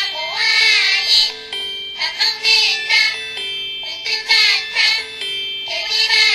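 Samsung SCH-E560 mobile phone ringtone playing through the handset's speaker: a short melody with a sung voice over a held note, the phrase repeating about every two seconds.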